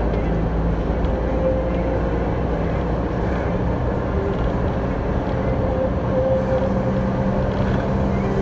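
Truck engine running steadily with tyre and road noise while cruising, heard from inside the cab.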